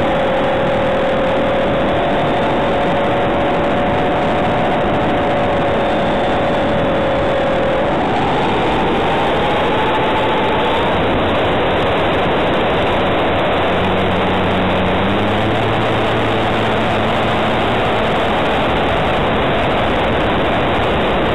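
Model aeroplane in flight heard from its onboard camera: a loud, steady rush of wind and propeller noise with a motor tone that steps up in pitch about eight seconds in.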